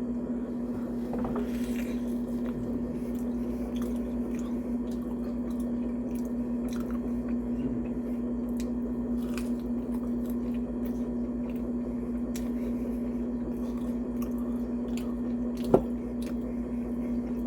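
Close-up chewing and biting of crunchy mini tacos in sauce, with wet squishing and many small mouth clicks, over a steady low hum. A single sharp click comes near the end.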